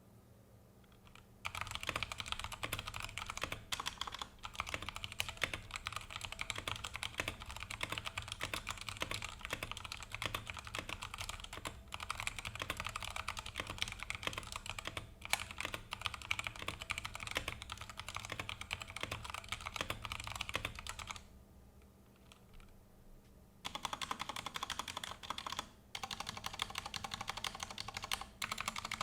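Redragon K630W mechanical keyboard with Outemu Brown tactile switches and PBT double-shot keycaps, typed on fast and continuously. Typing starts about a second and a half in, stops for about two seconds roughly two-thirds of the way through, then resumes.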